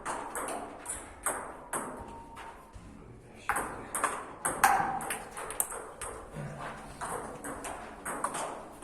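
Table tennis rally: the ball clicking off the rackets and the table in quick alternation, a sharp tick every half second or so, getting louder and faster about three and a half seconds in.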